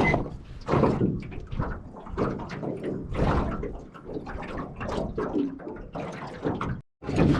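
Small boat rocking on the water: irregular slaps and splashes of water against the hull, mixed with knocks and thuds.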